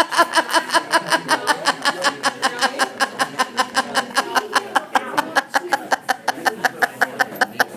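Laughter: a fast, very even 'ha-ha-ha' of about six pulses a second, held without a break, following a punchline.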